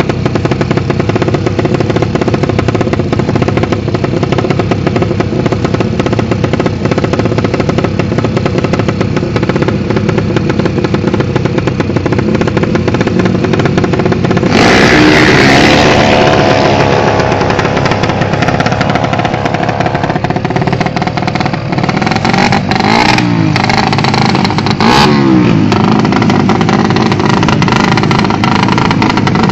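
Drag-race motorcycle engines running loudly and steadily. About halfway through, one bike revs hard in a sudden louder burst, and a few more short revs follow a little later.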